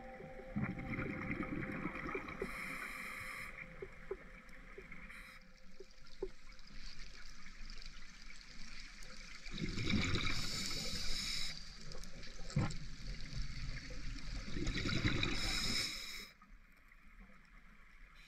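Underwater bubbling and gurgling, surging in bursts a few seconds apart over a steady hiss, then dropping low near the end.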